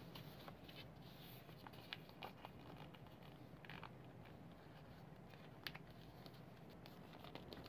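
Near silence, broken by faint scattered crinkles and ticks of paper being folded and creased by hand, the sharpest one a little before the end.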